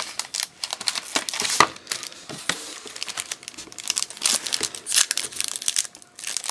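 Wrapper of a trading card pack crinkling and tearing as the pack is handled and opened, in quick irregular crackles.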